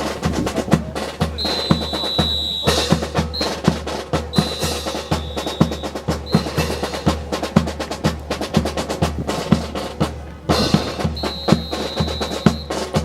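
Marching drum cadence: a bass drum keeps a steady beat under rapid snare and wood-block-like clicks, for a fancy drill display. A high thin steady tone sounds three times over the beat, each time for one to two seconds.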